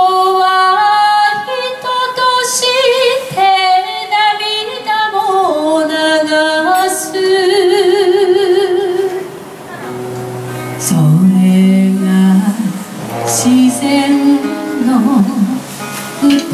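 Live acoustic music: two nylon-string classical guitars played together under a singer's sustained, wavering melody line with no clear words.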